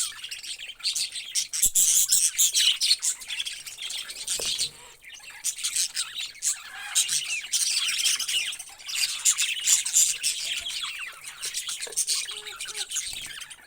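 Parrots chattering and squawking, many shrill chirps overlapping without a break except for a short lull about five seconds in.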